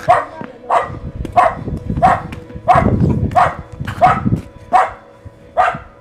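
A dog barking repeatedly, about ten barks at an even pace, stopping near the end.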